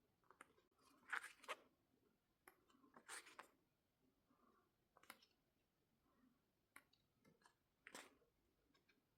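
Quiet paper handling as the pages of a small album photo book are turned: a few short rustles and clicks a second or two apart.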